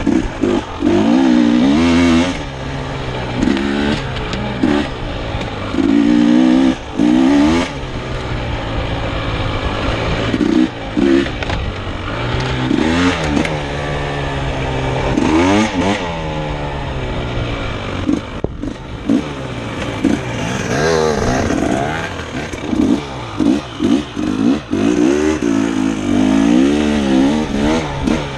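Off-road dirt bike engine revving up and dropping back over and over as the rider works the throttle and gears along a rough trail, with rattles and knocks from the bike over the bumps.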